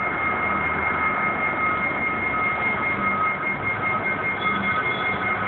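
Steady warehouse background noise: an even hiss of machinery and ventilation with two constant high whining tones over it.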